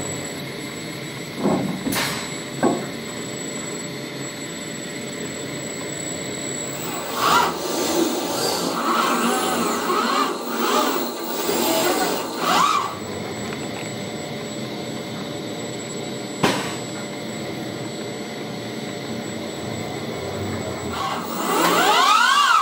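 Six-axis industrial robot arm moving, its joint servo drives whining up and down in pitch as the arm speeds up and slows down, with a few sharp clicks.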